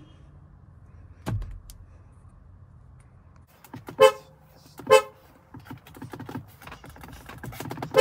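Volkswagen car horn sounded by pressing the steering-wheel pad: two short toots about a second apart near the middle, and another short toot at the very end. A low thump comes about a second in.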